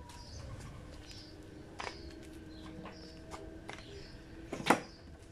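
Footsteps and light knocks on brick paving, then a sharp clack near the end as a metal-framed patio chair takes a person's weight. Faint bird chirps behind.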